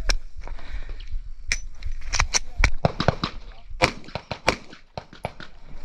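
Pistol shots fired in quick, irregular strings: well over a dozen sharp cracks, with a short lull a little before the end.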